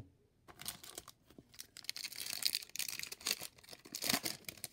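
A trading-card pack's foil wrapper being torn open and crinkled, a run of crackling tears that are loudest around the middle and again near the end. A sharp tap at the very start as a stack of cards is set down.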